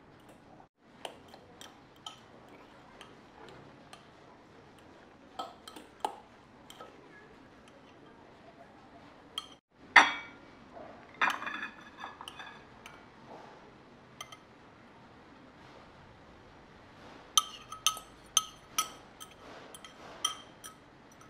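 A fork clinking and scraping against crockery as instant fried noodles are stirred and tipped out of a cup onto a plate. There is a loud clink about ten seconds in, followed by ringing knocks, and about six short ringing clinks near the end.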